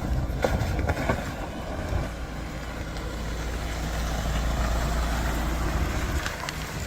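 SUV engine running with a steady low drone, with a few sharp knocks in the first second and again near the end.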